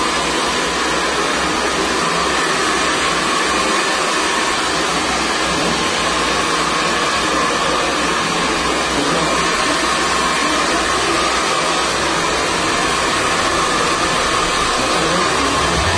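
Handheld hair dryer running steadily while blow-drying hair: a continuous rush of air with a steady whine.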